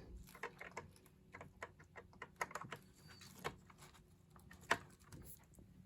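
Faint, irregular light clicks and taps from handling a PowerBook 1400 laptop, with a couple of sharper clicks about three and a half and just under five seconds in.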